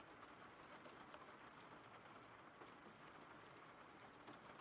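Steady rain, a faint even hiss with scattered drops pattering through it.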